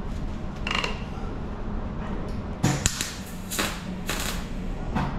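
Welder tacking steel on a classic Mini's front wing: short crackling bursts of welding, one about a second in and then several close together from about halfway.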